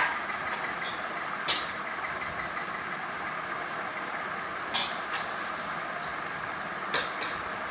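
A steady background hum with a few short, light clicks or taps scattered through it.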